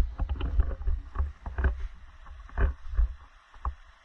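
Feet wading through a cold, shallow stream: irregular splashing steps in the water over a low rumble, growing sparser near the end.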